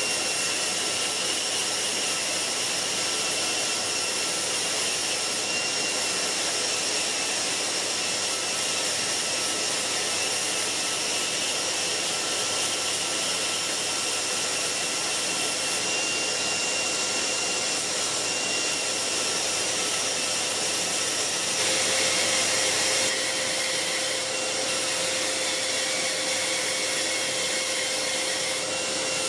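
Vacuum cleaner running steadily for dust extraction, together with a small handheld belt sander at slow speed grinding wood with an 80-grit belt. The whine changes about two-thirds of the way through as a new steady lower tone comes in.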